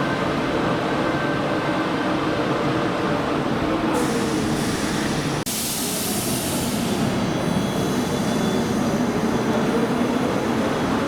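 CP series 2300/2400 suburban electric multiple-unit train running along the platform: a steady rumble with faint motor whine tones and some hiss a few seconds in. The sound breaks off for an instant about halfway through.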